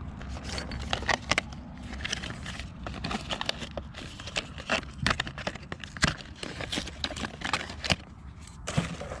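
White paperboard packaging box being handled and pulled apart by hand: a run of crackles, scrapes and sharp clicks.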